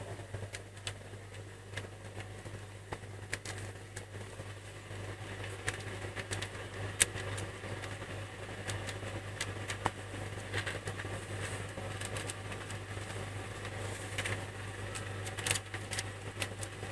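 Newborn kittens suckling at their nursing mother cat, with many small scattered clicks and smacks over a steady low hum.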